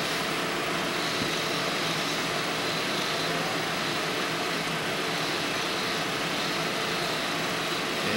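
Steady hum and hiss of a running machine, even and unchanging, with no knocks or rhythm.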